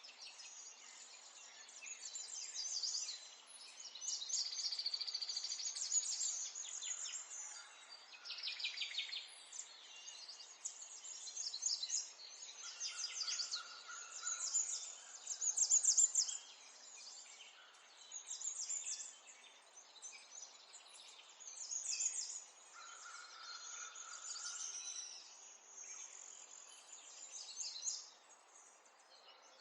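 Songbirds singing: overlapping high-pitched chirps and rapid trills, a new phrase every second or two.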